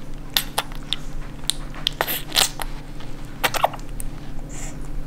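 A 2.5-week-old English bulldog puppy eating wet pâté for the first time, smacking and slurping at it in a run of irregular wet clicks.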